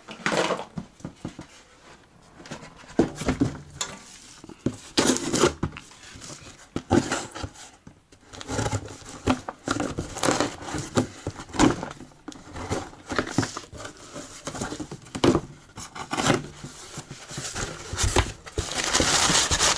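A cardboard shipping box being handled and torn open, with scattered knocks and tearing. Near the end comes a stretch of dense crinkling as the brown packing paper inside is pulled about.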